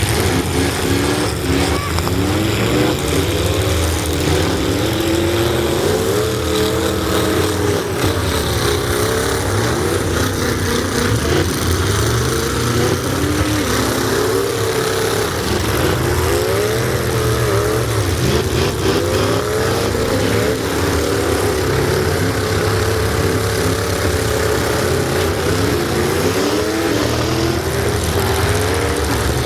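Truck engine running, its pitch rising and falling again and again as it is revved.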